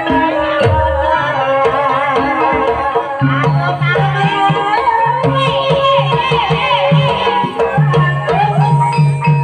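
Live Javanese gamelan music accompanying an ebeg horse trance dance: kendang hand drum strokes, some bending down in pitch, over repeating keyed percussion, with singing joining in about three seconds in.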